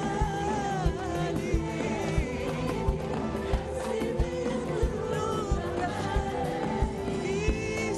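Live Arabic pop music: a woman's sung melody over a band with a steady drum beat.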